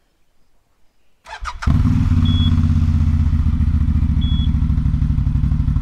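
CFMoto CForce 1000 ATV's V-twin engine cranked by its electric starter, catching about a second and a half in and settling into a steady, pulsing idle, its first start after a rollover. Two short high beeps sound over the idle.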